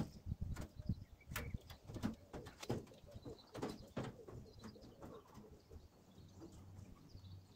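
Booted footsteps on a plank walkway, about two a second, fading as the walker moves away.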